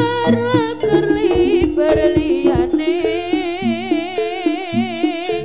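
Live East Javanese jaranan music: percussion strokes and held gong-chime tones under a wavering, vibrato-laden melody line.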